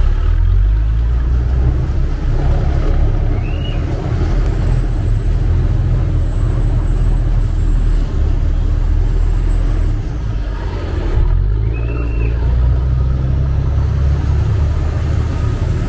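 Chao Phraya Express river boat's engine running steadily under way, a heavy low rumble with a wash of noise over it. Two short high chirps that rise and fall sound once about three seconds in and again about twelve seconds in.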